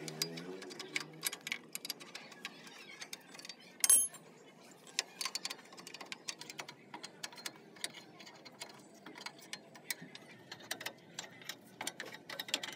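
Steel ring spanner clicking and clinking against the brake pipe nut behind the brake drum of a Bajaj GC 1000 three-wheeler as it is worked loose. A run of irregular light metallic ticks, with one sharp ringing clink about four seconds in.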